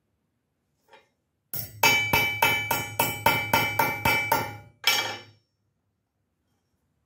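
A hammer striking a bent Briggs & Stratton pushrod laid on a steel table to straighten it. After one light tap, a quick run of about a dozen metal-on-metal strikes comes at about four a second, with a ringing tone under them, then one last strike.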